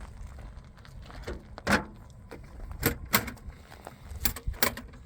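A handful of sharp metallic clinks and knocks at uneven intervals over a low rumble, as the awning's hardware and tools are handled during its installation.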